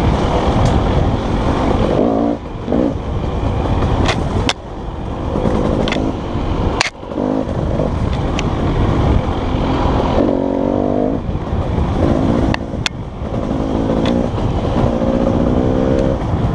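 Dirt bike engine running on a rocky downhill trail, the throttle blipped on and off several times, with wind rumble on the microphone and a few sharp knocks from the bike over rocks.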